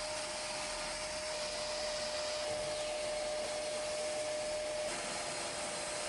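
Zanussi ZAN2000A upright vacuum cleaner running with a steady rush of air. A steady whine in it drops out about five seconds in.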